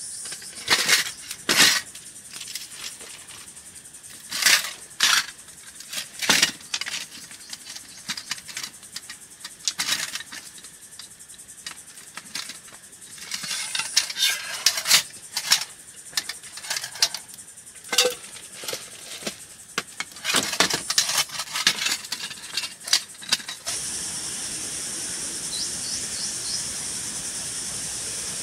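Camp gear and cookware being handled: scattered sharp knocks, clinks and rustling clatter, some in quick clusters. About 24 seconds in, a steady high hiss comes in under a few faint chirps.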